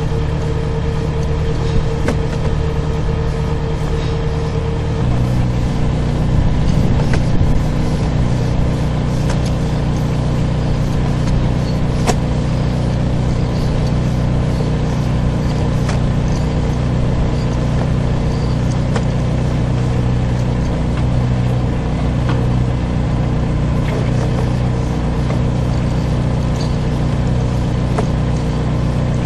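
Sewer jetter's engine and pump running steadily with an even drone; its tone changes about five seconds in.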